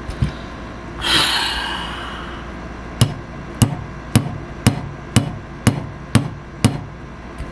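Hammer tapping a replacement sight into the slide of a Glock-style BB pistol: eight sharp, evenly spaced taps about two a second, after a brief scraping rustle about a second in.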